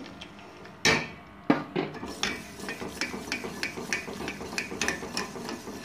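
Metal wire whisk beating custard mix into hot milk in a steel saucepan. Its wires clack rapidly against the pan, with a sharp clink about a second in.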